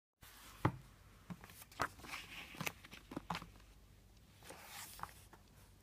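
Hardcover book being handled and opened: a few light knocks and taps of the cover against the table, with soft rustling of the pages.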